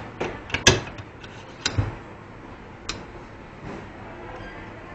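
A handful of sharp, irregular clicks and taps of small hard objects being handled, bunched in the first three seconds, the loudest a little under a second in. Quieter afterwards.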